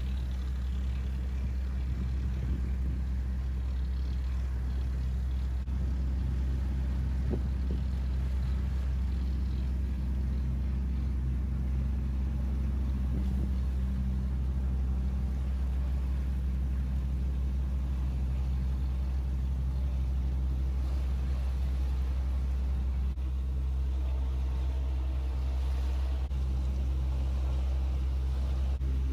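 Boat engine running steadily, a low rumble with a steady hum over it that briefly shifts about three-quarters of the way through.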